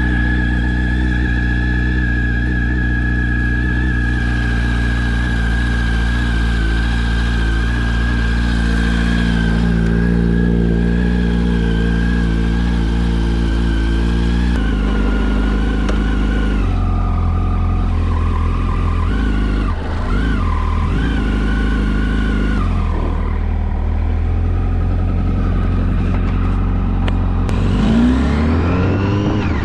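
2006 Yamaha R1's inline-four engine running on its stock exhaust while the bike is ridden, its pitch shifting in steps several times, with a rising rev near the end.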